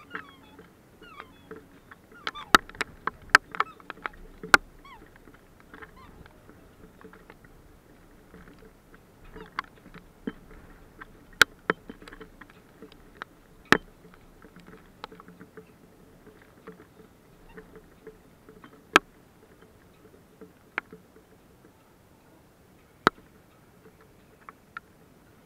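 Scattered sharp taps of hailstones striking hard surfaces close to the microphone, several in quick succession a few seconds in, then single taps every few seconds. A few short bird calls early on, over a faint steady low hum.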